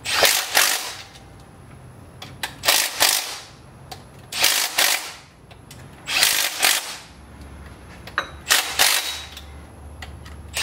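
Ratchet wrench clicking in several short, rapid runs every second and a half to two seconds as the bolts of a 5.3 L LS engine's timing cover are run down.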